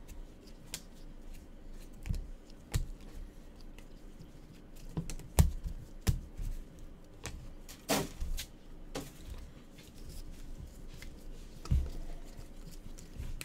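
Trading cards and foil packs being handled and set down on a table: irregular sharp taps and clicks, several with a low thump, spaced a second or so apart.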